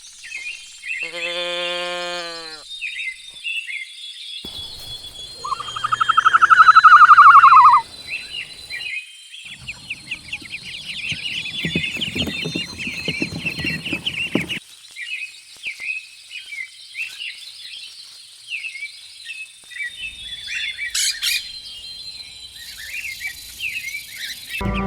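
Birds calling and chirping. Two louder drawn-out calls with falling pitch come near the start, the second, about two seconds long, the loudest. A busy run of short high chirps follows for the rest.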